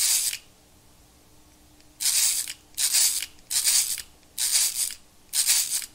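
Curta mechanical calculator's crank turned by hand, each turn a ratcheting mechanical whir about half a second long. There is one turn at the start, then after a short pause five more turns in quick succession: repeated subtractions in a long division.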